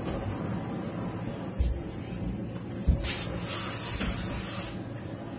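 Water spraying from a handheld shower head into a bathtub as it is rinsed during cleaning. The spray gets louder in the second half, with two dull knocks near the middle.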